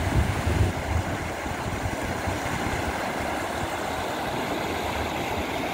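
Floodwater rushing over a submerged low-water road crossing: a steady wash of water with a low, unsteady rumble underneath, heaviest in the first second.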